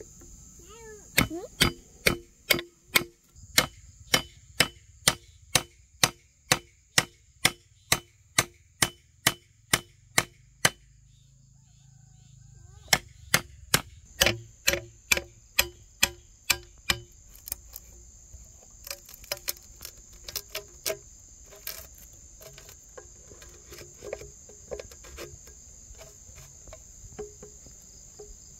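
Repeated sharp blows of a hand tool on wood or bamboo, about two to three a second, as in building with bamboo. They come in two runs with a pause of a couple of seconds near the middle, then turn softer and irregular. A steady high insect drone runs underneath.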